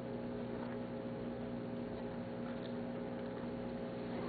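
Steady low electrical hum over a background hiss, with a few faint clicks.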